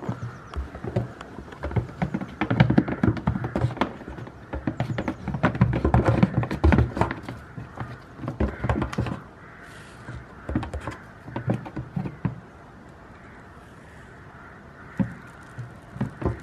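Goats' hooves tapping and thumping on upturned hollow plastic tubs as the goats jump and scramble on them: a busy run of knocks for the first nine seconds or so, scattered taps after that, a lull of a few seconds, then a couple of last knocks near the end.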